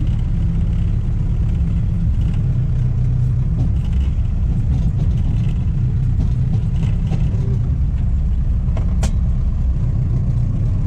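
Engine of an Ostrówek farm machine running steadily under work while its branch fork is lowered at a pile. A single sharp click about nine seconds in.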